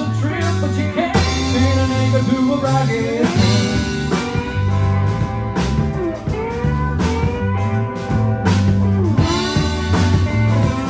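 Live rock band playing: electric guitars, electric bass and drum kit, with lead lines sliding in pitch and a few cymbal crashes.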